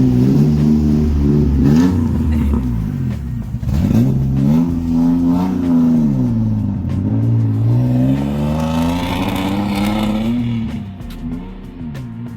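Car engine revving up and down several times, its pitch rising and falling in slow sweeps, then quieter near the end.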